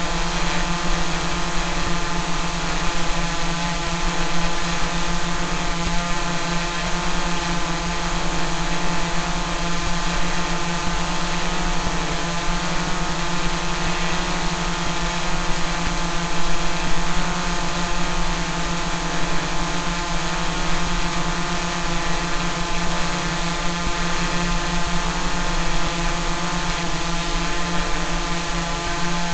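Multirotor drone propellers and motors giving a steady buzzing hum at constant pitch, as in a hover, with no change in speed.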